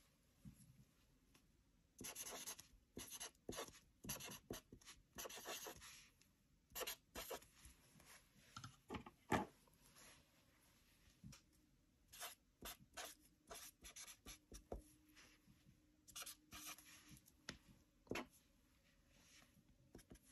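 Felt-tip pen writing on paper: short scratchy strokes in clusters with pauses between them as words are lettered, and one sharper tap of the pen about nine seconds in.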